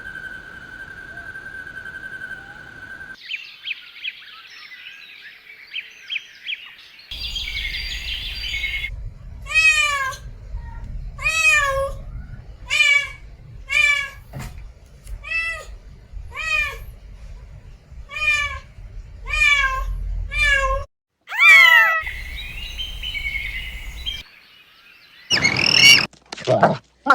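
Cat meowing over and over in short calls that fall in pitch at the end, about one and a half a second, for some ten seconds. Shorter clips of other animal calls come before and after.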